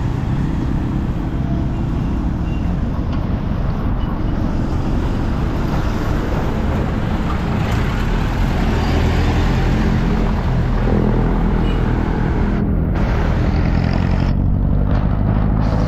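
Steady wind and road noise on the microphone while cycling on a road, with motor-vehicle noise mixed in.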